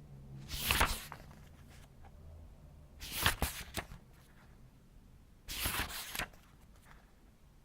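Paper book pages being turned slowly, three separate page turns a few seconds apart, each a soft papery rustle with a crisp flick.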